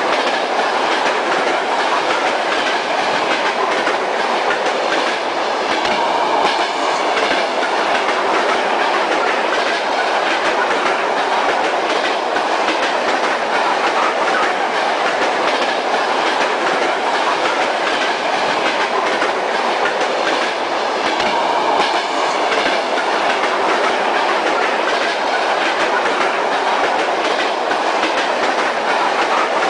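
Steady running noise of a Kyiv metro train, heard from inside the car: wheels on rails, with faint irregular clicks.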